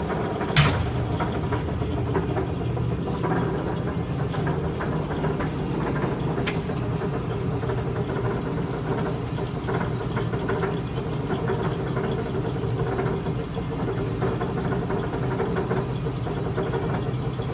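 Bliss C-60 mechanical punch press running on a 1-inch stroke, with a steady machine hum. A sharp click about half a second in and a few fainter clicks later.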